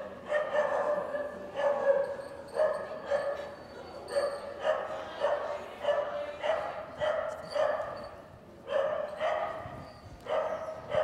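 A dog barking over and over in the show ring, about two barks a second, with a short pause about eight seconds in.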